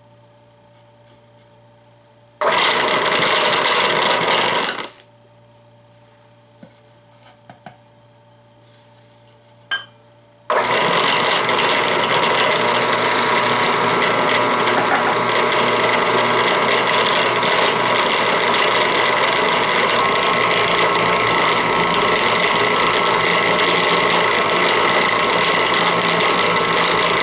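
Food processor cutting cold butter into flour for pie dough: the motor runs in one short pulse of about two and a half seconds a couple of seconds in, then, after a few light clicks, runs steadily from about ten seconds in as the dough comes together.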